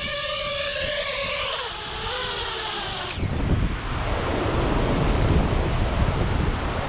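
Background music until about three seconds in, then a sudden cut to a loud, steady rushing noise of a waterfall, with wind buffeting the microphone.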